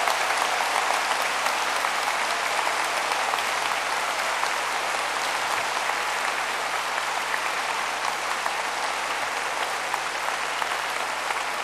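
Audience applauding steadily, the clapping slowly easing off toward the end.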